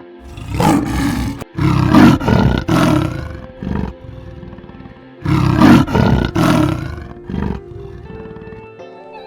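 A large animal roaring in two series of deep, loud calls, three or four calls each, over background music.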